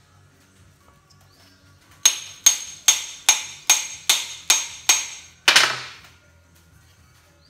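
A run of nine quick hammer blows, about two and a half a second, each with a short metallic ring, the last one heavier: a hammer seating a brass hammer head onto a new hickory handle.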